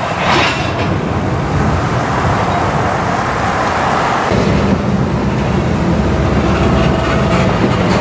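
Freight cars rolling slowly along the track, a steady low rumble of wheels on rail, with a brief hiss under a second in. About four seconds in the rumble grows stronger as the hopper cars roll past close by.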